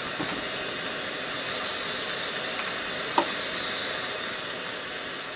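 Steady hiss of steam from a standing 15-inch gauge steam locomotive, with a single sharp click about three seconds in.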